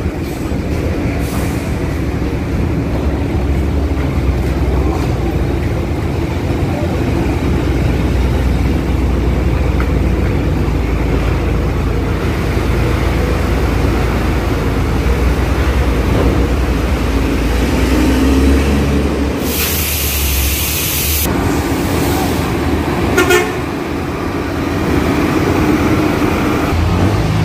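Engines of heavy trucks and buses running with a steady low rumble as they queue and creep forward. About two-thirds of the way through comes a loud hiss lasting about two seconds, and a few seconds later a short horn toot.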